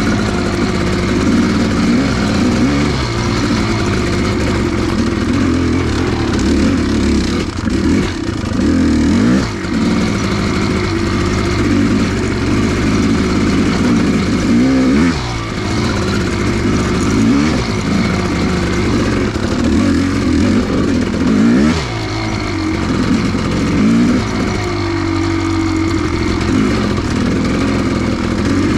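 Kawasaki KX500's two-stroke single-cylinder engine running while the dirt bike is ridden, revving up and down with the throttle. Its note drops and climbs again several times, most clearly about halfway through and again a little later.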